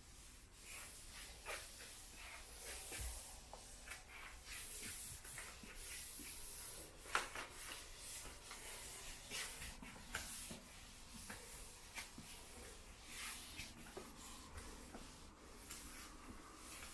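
Quickle Wiper floor wiper's sheet swishing and rubbing across the floor in repeated short strokes, with a few light knocks, the sharpest about seven seconds in.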